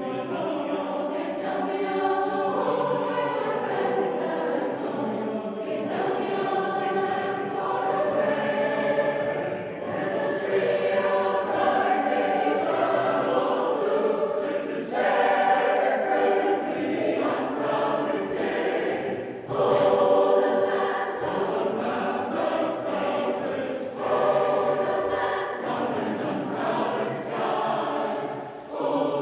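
Mixed choir of men and women singing, in phrases of four to five seconds with short breaks between them.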